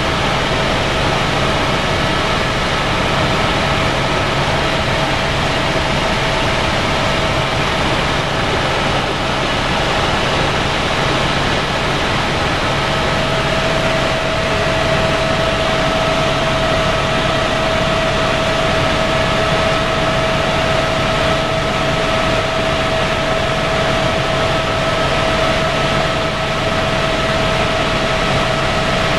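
Helicopter in flight, heard from inside the cabin: steady, loud rotor and engine noise with a constant high whine running through it.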